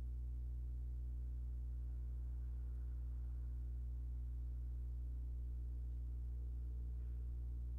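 Steady low electrical hum, unchanging in pitch and level, with nothing else clearly heard.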